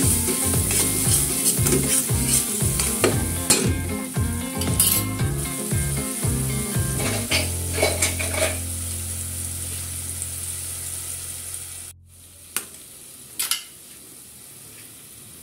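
Diced onion and crushed garlic sizzling in hot oil in a stainless steel pot while a spoon stirs and scrapes it in quick repeated strokes. The stirring stops about halfway and the sizzle grows fainter; near the end come two short clicks.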